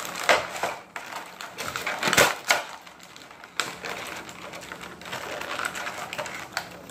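Clear plastic blister packaging crackling and clicking as it is handled and pried at, with two sharp snaps a little over two seconds in, then lighter crinkling.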